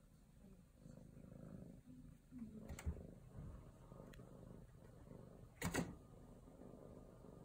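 A cat purring, a low steady rumble, with two sharp knocks about three seconds apart.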